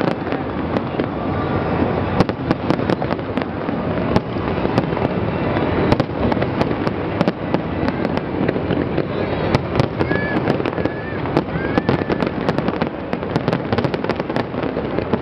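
Fireworks display going off: many sharp bangs in quick succession over continuous dense crackling noise.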